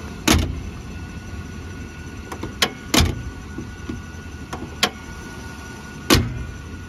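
Hood of a Chevrolet pickup truck being lowered and pressed down by hand, giving a series of sharp knocks. The loudest come about a third of a second in, around three seconds in and near the end, over a steady low rumble.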